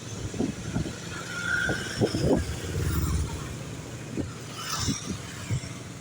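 Road traffic passing, with a vehicle's engine rumble loudest about three seconds in.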